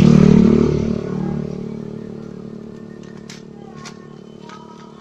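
A motor vehicle passes close by, loudest at the start, then dropping in pitch and fading away over the next few seconds. A few short clicks follow in the second half.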